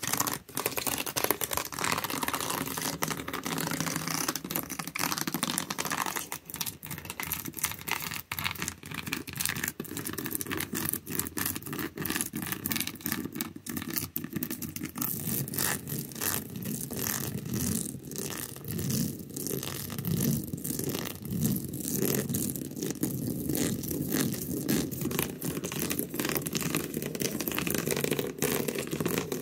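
Backs of fingernails scratching rapidly and continuously over an object's surface in a dense, scratchy rustle; about six seconds in the texture changes, becoming lower and duller.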